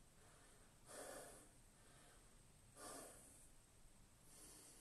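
A man breathing softly while holding a standing shoulder stretch: three faint breaths, roughly every one and a half to two seconds.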